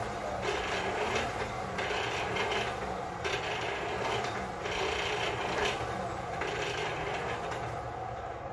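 Rhythmic rasping and scraping of metal work in a forge shop, in strokes of about a second and a half each, over a steady low hum.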